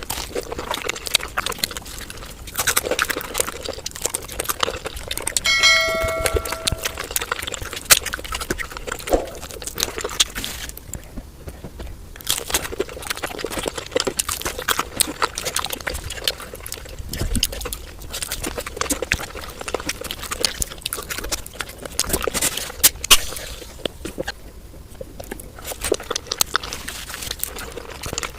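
Fast eating sounds: chewing and mouth clicks, dense and irregular, with a brief ringing ding about six seconds in.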